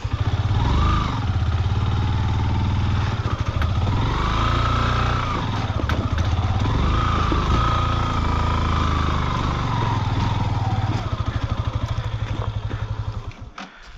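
Motorcycle engine running hard and revving up and down in several long swells, then cutting off near the end.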